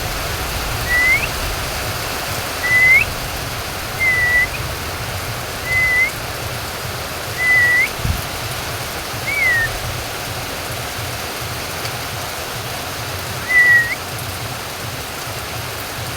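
A bird whistling short single notes, seven in all, most ending in a quick upward flick, over the steady hiss of falling rain.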